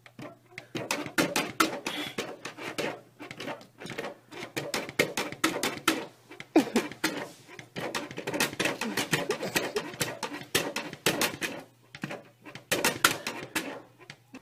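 Plastic pet-door flap clattering and knocking over and over, in quick irregular clicks, as a pet paws and pushes against it.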